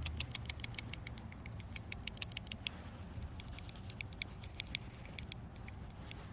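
Light, irregular clicking and ticking of a folding knife being handled, its blade and lock parts clicking, thinning out after about three seconds, over a steady low hum.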